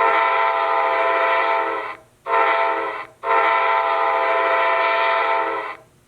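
Nathan K5LA five-chime air horn recording played through the small speaker of an HO-scale LokSound 5 sound decoder: three blasts, long, short, long, each a steady chord that cuts off cleanly.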